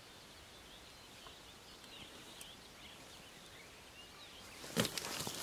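Faint bird chirps over quiet outdoor background. Near the end, a sudden burst of rustling and knocks as people and gear start moving.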